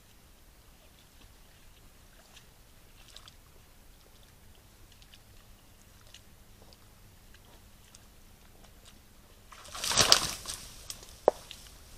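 Faint scattered ticks and rustles, then about ten seconds in a loud splash lasting about a second: an animal moving through shallow water in a forest pond or wallow. A single brief pitched note follows a moment later.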